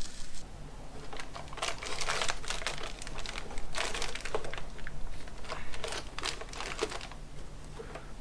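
Plastic mesh netting rustling and crinkling as gloved hands pull it off an intermediate shaft's coupling in a wooden crate, in several bursts of clicks and scraping, over a faint steady low hum.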